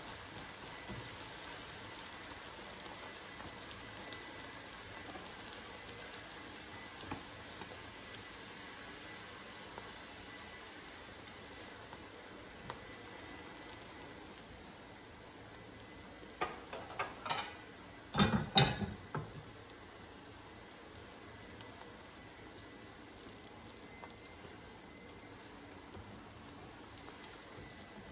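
Thin omelette of beaten egg and milk sizzling steadily in a frying pan on a gas burner. About two-thirds of the way through come a few loud clattering knocks.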